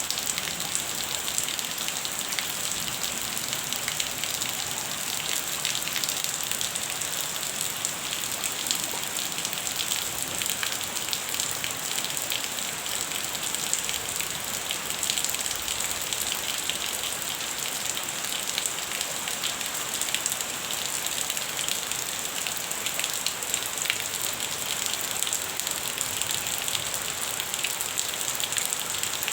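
Light rain (drizzle) falling steadily, a dense run of small drop ticks over an even hiss.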